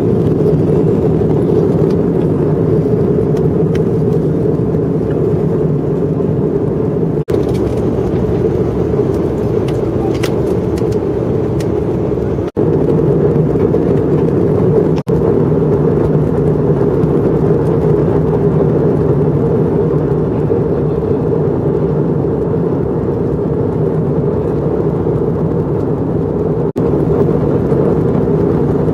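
Steady drone of an airliner's engines and airflow heard inside the passenger cabin in flight, with a few momentary dips.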